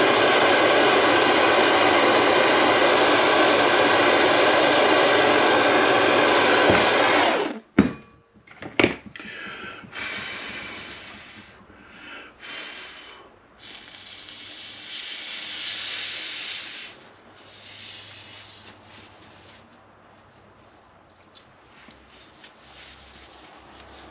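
A gas blowtorch flame burning steadily and loudly as copper pipe fittings are soldered, then cut off about seven and a half seconds in. Two sharp clicks follow, then quieter rubbing and handling sounds.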